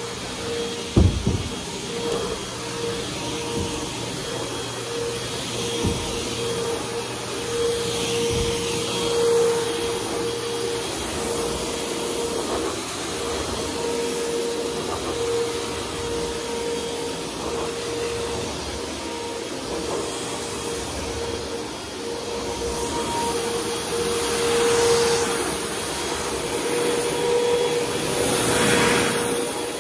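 Upright vacuum cleaner running on thick carpet: a steady motor whine over the suction noise, which swells and eases as the cleaner is pushed back and forth. A few sharp knocks about a second in, the loudest sounds here, with a couple more a few seconds later.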